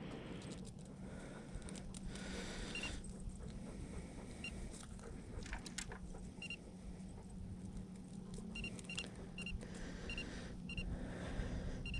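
Short high electronic beeps, all at one pitch, coming at irregular intervals and several in quick succession near the end. Under them run a low steady hum and faint clicks and rattles.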